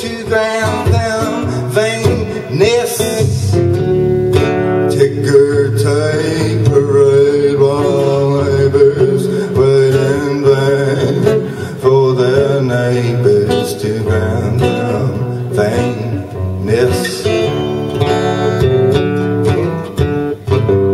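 Steel-string acoustic guitar played live and strummed through a PA, with a man singing at times.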